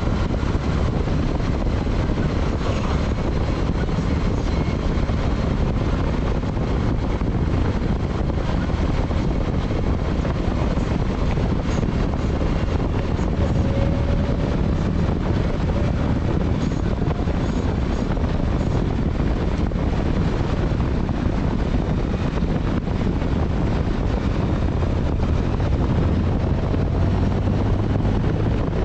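Motorcycle riding at speed: steady engine drone under heavy wind rush on the microphone.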